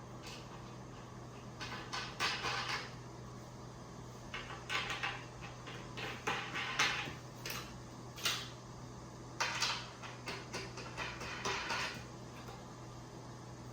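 Adjustable feet being fitted into the bed frame's boards by hand: several bursts of clicking and rattling, with a single sharp knock a little after eight seconds in.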